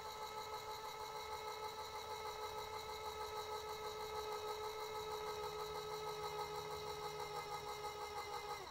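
Rotork IQTM500 electric valve actuator's motor running as it drives the valve closed during its automatic limit-setting calibration: a steady whine with a fast flutter, sagging slightly in pitch. It glides down and cuts off at the very end as the actuator reaches its closed limit and stops.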